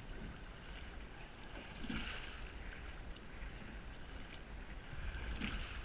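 Rowing boat moving through water, with a swell of oar and water noise at each stroke, twice, about three and a half seconds apart, over a steady low rumble.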